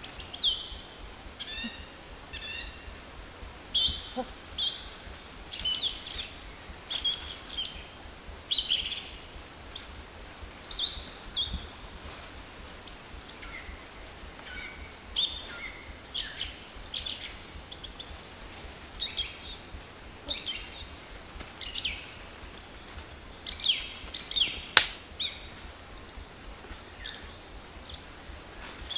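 Forest birds calling: short chirps falling in pitch, one every second or so. A single sharp knock stands out about 25 seconds in.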